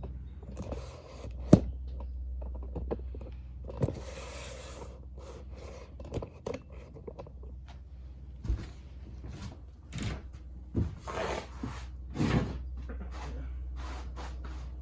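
Scattered metal clunks, knocks and scrapes as an engine is worked into an ATV frame, with the sharpest knock about one and a half seconds in and a cluster of knocks and scrapes near the end. A steady low hum runs underneath.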